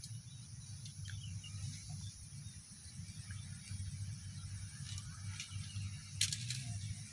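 Quiet outdoor ambience: a fluctuating low rumble under a steady high-pitched whine, with a few brief sharp clicks about five and six seconds in as a fishing rod's line and small spinning reel are handled.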